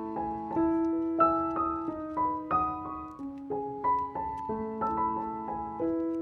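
Background piano music: a gentle melody of single notes and broken chords played at an even pace.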